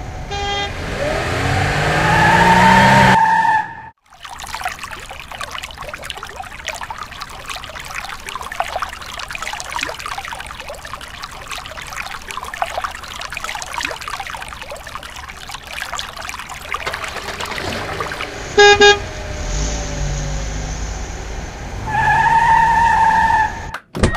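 A vehicle sound effect revving up and ending in a steady horn honk. Then about fourteen seconds of water spraying and splashing onto a plastic toy bus in a tub. Near the end come short beeps, another rev and a second horn honk.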